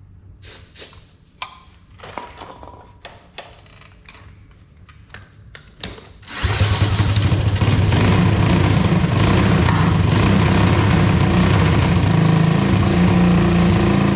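Short hisses and clicks from an aerosol can sprayed at the engine. About six and a half seconds in, the 1983 Honda ATC 185S's single-cylinder four-stroke engine fires and runs loud and steady.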